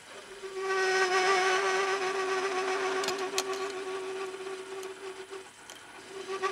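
Lathe tool cutting a spinning steel workpiece and ringing with a steady pitched chatter. The ring starts just after the beginning, dies away about five and a half seconds in and comes back near the end, with two sharp clicks around the middle.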